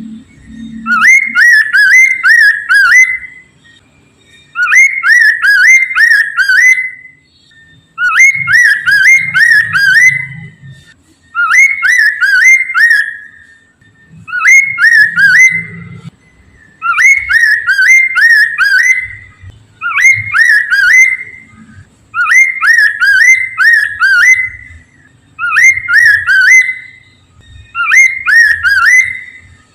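Poksay mandarin (a laughingthrush) singing loud whistled song phrases, each a quick run of four or five notes, repeated about nine times with short pauses between them: the full, persistent song of a bird in top singing form, used as a lure to get others of its kind to sing.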